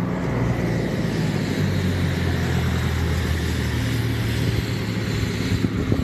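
A vehicle engine running steadily, a low, even hum.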